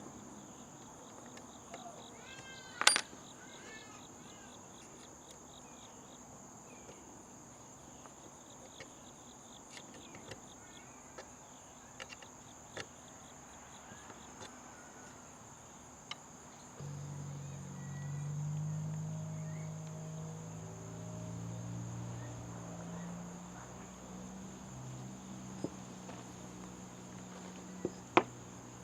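Steady high-pitched insect trilling, with a few sharp clicks and taps, the loudest about three seconds in and near the end. A low hum of several tones comes in a little past halfway.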